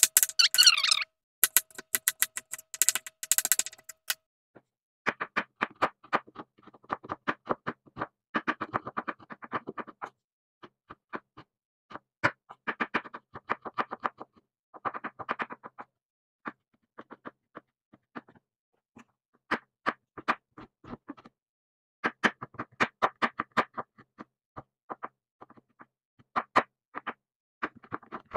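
A kitchen knife finely chopping hard jaggery on a wooden board: quick runs of sharp taps of the blade through the sugar onto the wood, with short pauses between runs. The first few seconds are louder, with a steady ringing tone under the strikes.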